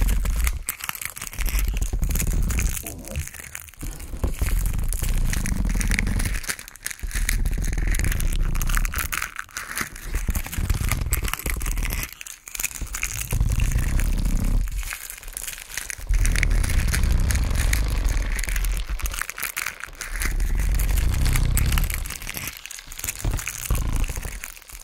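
Dense crackling, crunching noise over a deep rumble. It comes in swells of two to three seconds, each broken by a brief dip.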